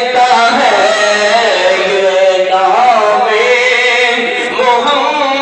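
A man chanting a melodic recitation, his voice held on long notes that waver up and down in pitch.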